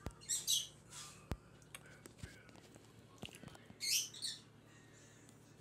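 Bird chirping in two short high bursts, one near the start and one about four seconds in, with a few faint clicks and knocks in between.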